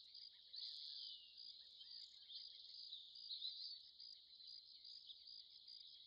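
Faint rainforest ambience: a steady, high-pitched insect chorus with scattered short chirping calls.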